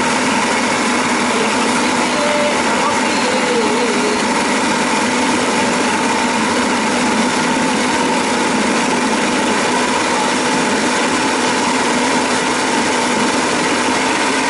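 Electric food processor motor running at steady high speed with a constant whine and hum, its blade grinding feijoa fruit into a pulp.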